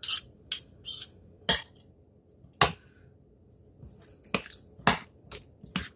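Metal utensil clinking and scraping against a ceramic bowl while stirring and scraping down a thick cream cheese and raspberry mixture: about nine sharp, irregular clicks with short scrapes.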